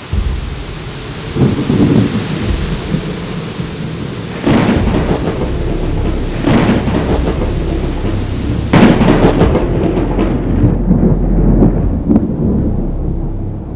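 Thunderstorm: steady rain with several rolls of thunder, the loudest about nine seconds in.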